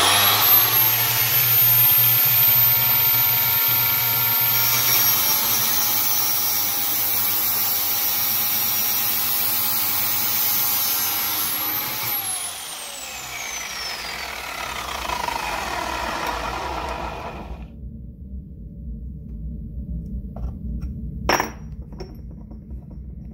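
A Parkside PMTS 180 A1 metal cut-off saw, a 1280 W motor driving a 180 mm abrasive disc, starts with a high whine and runs, grinding, for about twelve seconds. It is then switched off and the disc winds down, its whine falling steadily over about five seconds. A single sharp clack comes near the end.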